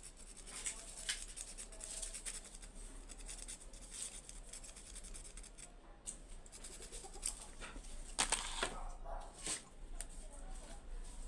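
Faint, irregular scratching and small ticks of a component's wire lead being scraped clean by hand so that solder will take. A few louder scrapes and handling knocks come about eight to nine and a half seconds in.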